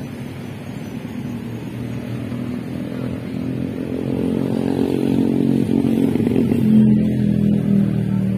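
A motorcycle engine running as it passes on a nearby road, growing steadily louder over several seconds and loudest near the end.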